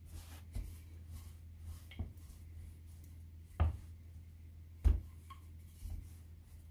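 Wooden rolling pin rolling out soft dough on a wooden board, with several short knocks of wood against wood, the loudest about five seconds in.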